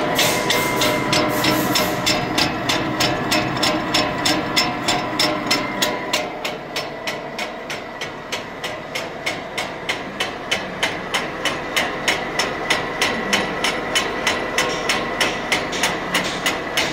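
Pro-Cut KG-32-MP 32-head meat grinder running empty, its motor humming while the auger in the head gives a regular clicking knock about four times a second. The clicks are a little noise from the auger.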